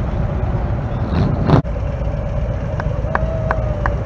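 Classic cars' engines running as they drive slowly past at low speed, over steady low street noise. There is a short loud burst about a second and a half in, and light ticks about three a second in the second half.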